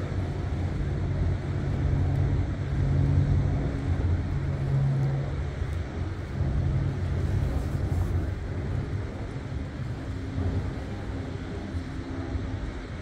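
Low, steady engine rumble with a droning hum, louder in the first half and easing off after about nine seconds.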